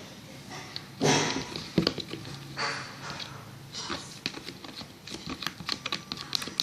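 A spoon clicking and scraping irregularly in a container as a glue mixture for slime is stirred, with a louder swish about a second in.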